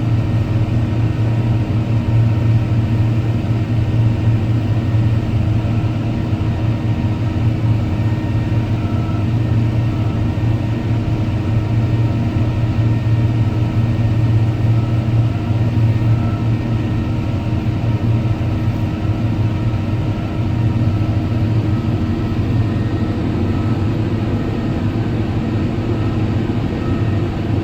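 Tractor engine running steadily with a low hum, driving a front-mounted Lasco Lightning Weeder.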